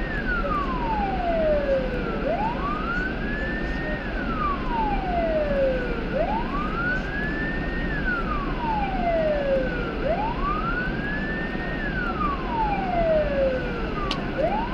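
Emergency vehicle siren in slow wail mode, rising and falling about once every four seconds, over a steady low rumble.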